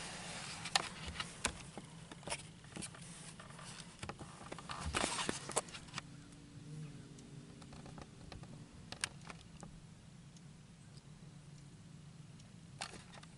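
Faint scattered clicks and rustles, with a louder stretch of rustling about four to five seconds in, over a faint steady low hum.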